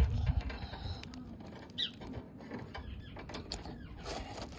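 Light clicking, scratching and rustling in a small-pet hamster cage, with a low bump right at the start and a short high squeak about two seconds in.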